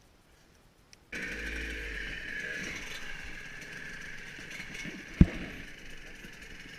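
Enduro motorcycle engine running, coming in abruptly about a second in after near silence, with one sharp knock about four seconds later.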